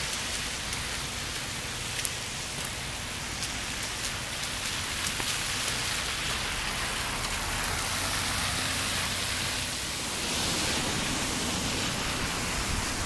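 Steady hiss of rain and wet-road noise around a car, with a few faint ticks scattered through it and a slight swell about ten seconds in.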